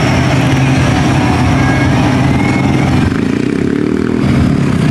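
Lifted mud truck's engine running loud and steady, revving up with a rising pitch about three seconds in.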